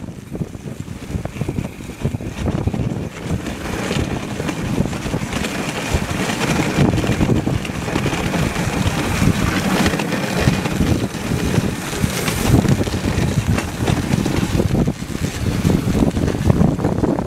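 Dog sled in motion behind a husky team: runners hissing over packed snow with wind buffeting the microphone, growing louder over the first few seconds and then running steadily.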